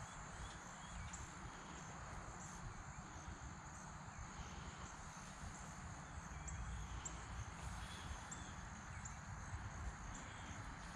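Outdoor field ambience: a steady high insect drone with short, high chirps scattered through it, over a low rumble of wind on the microphone.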